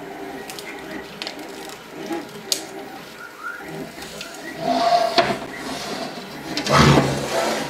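Backing paper being peeled off a self-adhesive sheet, rustling and crackling with small clicks. A large flat sheet is then handled and set down, making the loudest rustle about seven seconds in.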